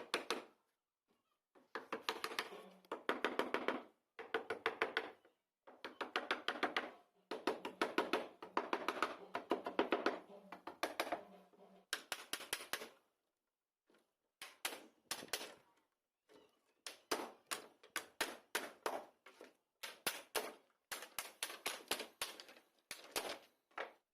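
Rapid tapping and knocking in bursts, then separate sharp strikes two or three a second from about halfway: typical of hammering on a wooden box during its building.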